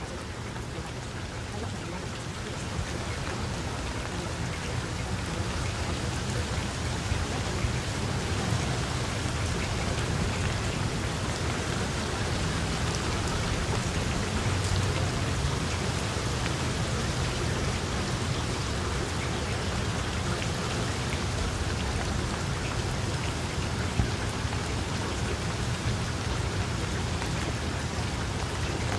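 Steady rain falling, an even hiss of drops with a low rumble underneath, slowly growing a little louder over the first several seconds and then holding level.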